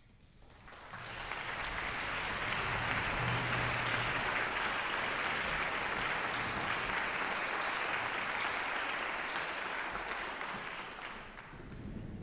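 Audience applauding, the clapping building up about a second in, holding steady, then dying away near the end.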